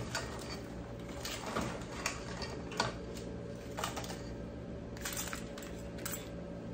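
Metal tongs clinking against a steel cooking pot as boiled crab pieces are lifted out and dropped into a plastic colander: a sharp metallic click every second or so, over a steady low hum.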